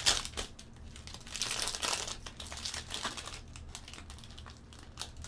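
A trading-card pack's wrapper torn open and crinkled in the hands. The crinkling is loudest in the first three seconds, then gives way to quieter rustling and clicks as the cards are handled.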